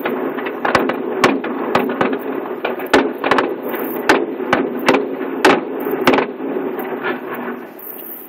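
Fireworks shells bursting in a rapid, irregular series of sharp bangs, about two a second, thinning out near the end, over a steady low background hum.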